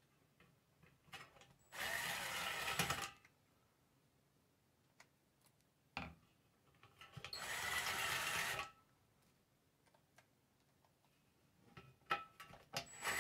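Cordless drill/driver running in three short bursts of about a second and a half each, the last near the end, driving small screws lightly into the plastic side panels of a Ubiquiti LiteBeam AC Gen 2 dish. Light clicks of screws and parts being handled come between the bursts.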